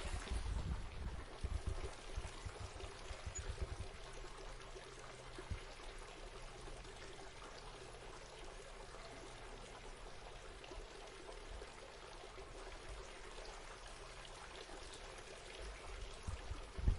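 Water fountain running, a steady trickle and splash of falling water, with some low rumbles in the first few seconds.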